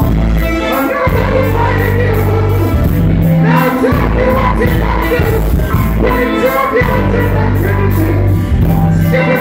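Live reggae band playing loud through the venue PA, with a heavy bass line of held notes, electric guitar and drums, as a male singer sings over it into a microphone.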